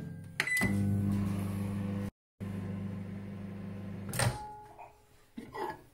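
Countertop microwave oven running with a steady electrical hum while heating liquid soft-plastic lure mix. It starts with a click and a short beep, and a sharp click about four seconds in, as the door is opened, cuts the hum off.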